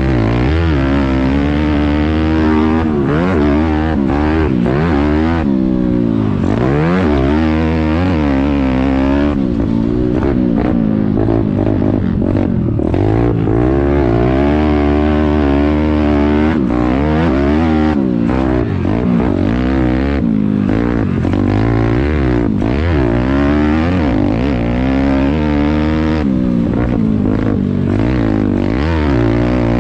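Pit bike's small single-cylinder four-stroke engine being ridden hard, revving up and down constantly, its pitch rising and falling every second or two with quick throttle changes.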